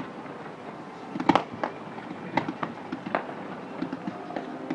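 Fireworks going off: a scatter of sharp bangs and cracks, the loudest pair coming about a second in, with more scattered through the rest.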